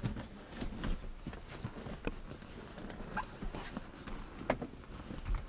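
Irregular light knocks and clicks of hands working a car seat and its fittings, with no steady motor sound.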